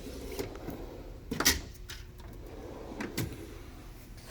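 Snap-on roll cab drawers sliding on their runners and shutting, with a sharp metal clack about a second and a half in and a second, softer clack about three seconds in, and light tool rattles between.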